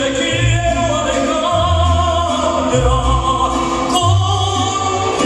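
Waltz music with a singing voice carrying the melody over deep bass notes that change about once a second.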